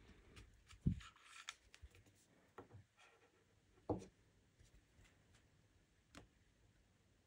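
Faint clicks, taps and a brief scratchy rubbing as a BMW key fob and its plastic parts are handled, with a few separate knocks; the loudest comes about four seconds in.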